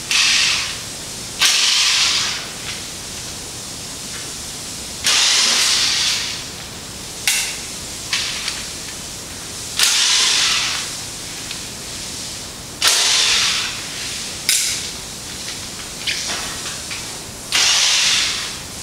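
Power screwdriver backing out the screws that hold the cover of a Fast T-Jet2 garment printer, running in short bursts of about a second, one every two to four seconds.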